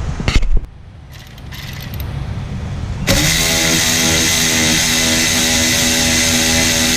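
A few sharp knocks, then about three seconds in a machine starts abruptly and runs steadily with a loud hum and hiss.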